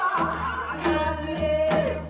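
Korean traditional gugak ensemble music: a wavering melody over a steady low tone, punctuated by drum strokes.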